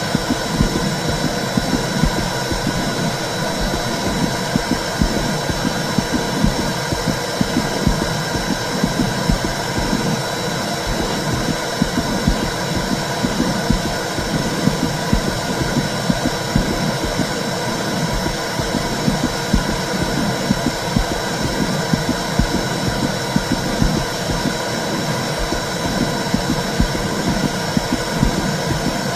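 Womb sound played to soothe a baby: a steady whooshing noise with a low pulsing throb beneath it, and a faint steady high tone.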